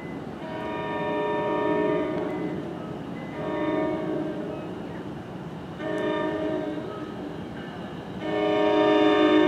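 An approaching NJ Transit train's horn sounding four blasts of a several-note chord, the first and last held longest and the last the loudest, over a low rumble.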